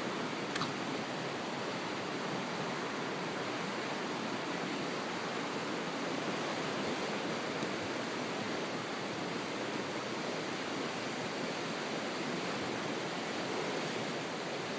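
River water rushing in a fast, steady flow, with one faint click about half a second in.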